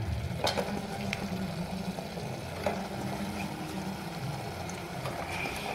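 Raw chicken pieces being dropped into a pressure cooker of masala: a few faint soft knocks and ticks over a steady low hum.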